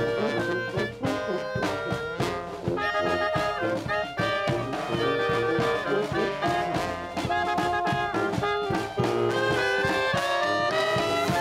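Small brass marching band playing a lively tune: trumpet, clarinet and sousaphone over steady bass drum and snare drum beats.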